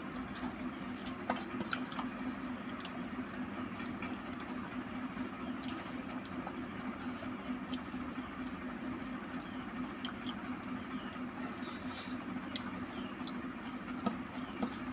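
Eating by hand from a stainless steel plate: fingers mashing and mixing rice and fish against the metal, with soft squishing and scattered small clicks, over a steady low hum.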